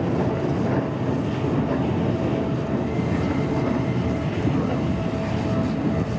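Steady rumbling vehicle noise with a faint, steady whine running through it.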